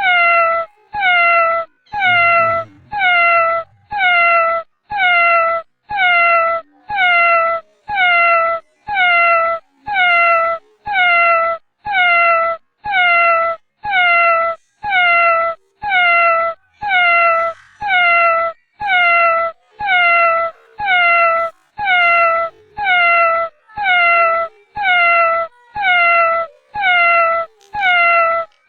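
A cat's meow, the same short call with a falling pitch repeated about once a second at perfectly even spacing.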